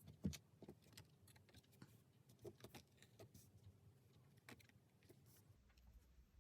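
Faint scattered taps and light rustles of tarot cards being handled and set down on a table, with one louder tap about a third of a second in.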